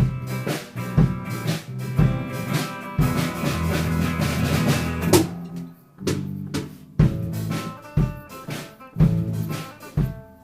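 Amateur rock band playing: electric guitars, bass and drum kit, with a heavy beat about once a second under ringing chords. About five seconds in a loud crash hits, the playing thins for a moment, and then the beat starts again.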